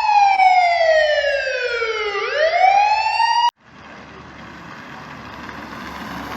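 Siren wail with many overtones, sliding down in pitch for about two seconds, then rising back up and cutting off sharply about three and a half seconds in. After that comes a rushing noise that slowly grows louder.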